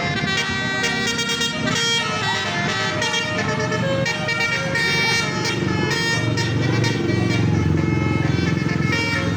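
A bus's basuri telolet horns, a set of roof-mounted electric air-horn trumpets, playing a tune in quick changes of pitch, over a low rumble that grows louder in the second half.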